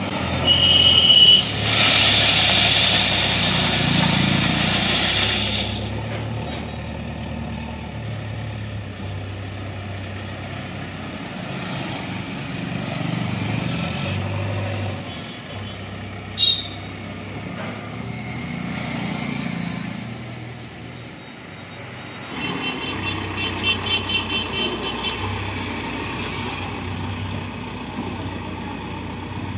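JCB backhoe loader's diesel engine running as the machine works, with road traffic close by. A vehicle goes past loudly in the first few seconds, and there is one sharp knock midway.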